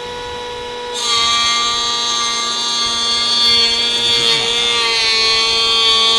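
Voto 21V cordless brushless wood planer running with a steady high whine. About a second in it gets louder and brighter as it cuts into wood, and the pitch sags slightly under load around four seconds in.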